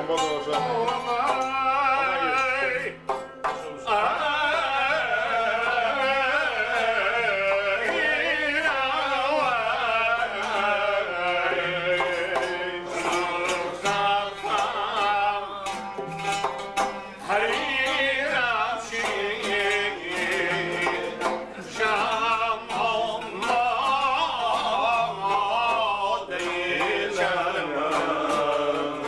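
An older man singing an ornamented, wavering melody while accompanying himself on a long-necked plucked lute. The singing pauses briefly about three seconds in.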